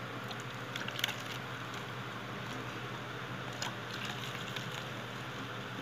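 Light clicks and taps of a plastic cup against a plastic bottle as yeast mixture is poured in, about a second in and again past the middle, over a steady background hiss.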